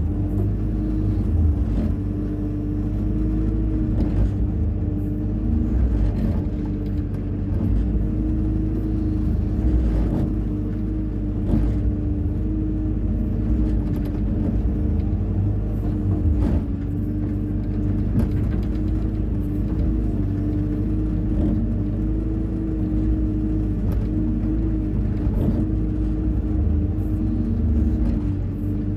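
Hyundai 140 wheeled excavator's diesel engine running steadily at a constant pitch with a low rumble, with occasional short knocks from the machine at work.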